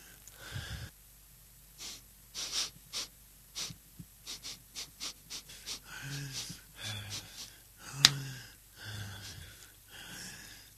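A person panting and gasping in quick, short breaths, out of breath. There is a sharp click about eight seconds in.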